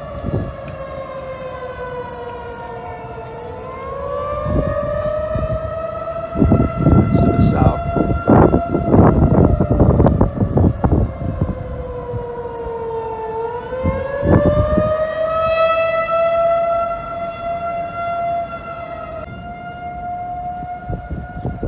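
Outdoor tornado warning sirens sounding during a tornado warning, one long sustained tone with a sagging pitch that slides slowly down and swings back up twice, about ten seconds apart. Bursts of rumbling noise break in over it, loudest from about six to eleven seconds in and again around fourteen seconds.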